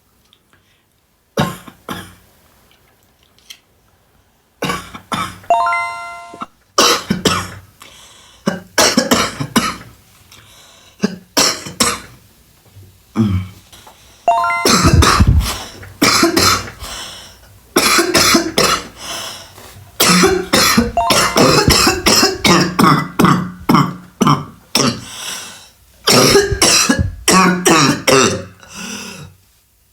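A person performing a series of different coughs and throat clearings: a few isolated coughs early on, then longer and louder coughing fits packed close together from about halfway. A short ringing chime sounds about six seconds in.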